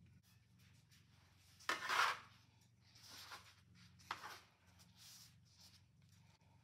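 Metal bench scraper sliding and scraping across a wooden cutting board as it scoops up a pile of grated Parmesan, in a few short strokes, the loudest about two seconds in.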